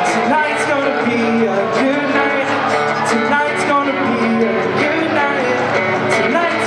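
Live band of acoustic and electric guitars playing a song, steady and loud, heard through a large hall.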